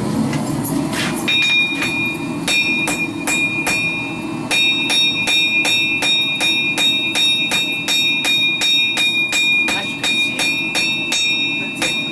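Hammer striking hot steel on an anvil in a quick series of blows, the anvil ringing with a high, clear tone after each strike, with a short pause a few seconds in; a blacksmith is forging the bevels of a knife from ball-bearing steel. A steady low noise from the gas forge's burner runs beneath.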